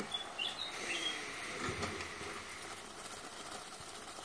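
Chips deep-frying in hot oil in a stainless steel pot, a steady crackling sizzle, with a few short high chirps near the start.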